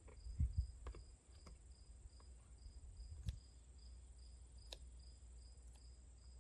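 An insect chirping steadily in the background, about two to three high chirps a second, with a few faint sharp clicks from scissors snipping carrot microgreens and a soft low thump about half a second in.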